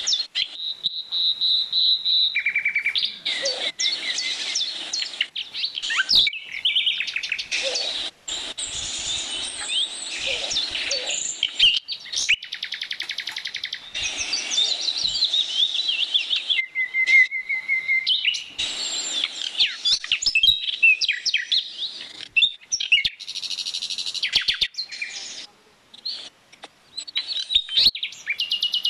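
Several songbirds singing and chirping at once: a dense chorus of quick chirps, whistled glides and trills, with a fast, evenly repeated trill near the end.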